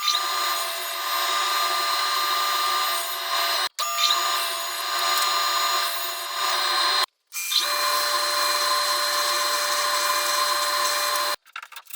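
A power tool running steadily with a constant whine, most likely cutting or boring wood, heard in three edited stretches that start and stop abruptly about 4 and 7 seconds in and again near the end.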